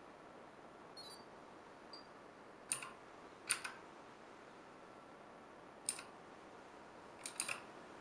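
Clicky Gateron Blue mechanical key switches being pressed: a handful of sharp, separate clicks, some in quick pairs, with a fast cluster of three near the end.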